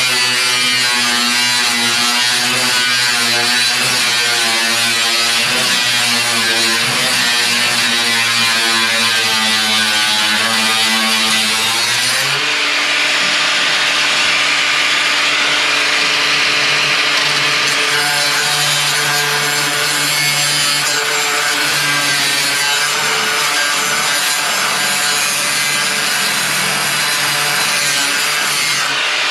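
Power saw cutting through the steel body of a 1941 Lincoln Zephyr to remove the old door hinge pillar, its motor running steadily under load with a shift in pitch about halfway through.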